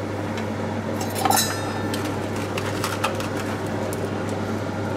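Steady hum of an air fryer running, with a ringing clink about a second in and a few light knocks of a wooden spoon stirring a cream sauce in a pan.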